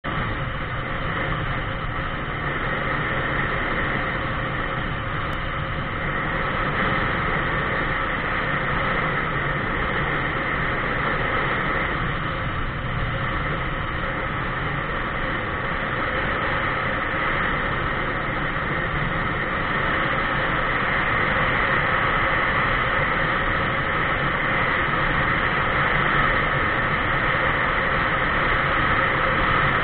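Steady rushing wind and road noise from a camera mounted on a vehicle moving along a paved highway, unbroken throughout.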